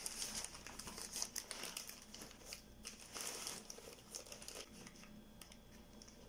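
Thin black plastic sheeting crinkling and rustling in irregular crackles as hands stretch and smooth it over a paper helmet form, dying down near the end.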